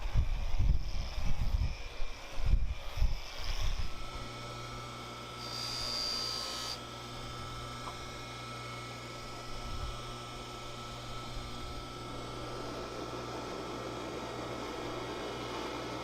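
Irregular low rumbling for the first few seconds, then a steady electrical or mechanical hum with a faint high whine about six seconds in.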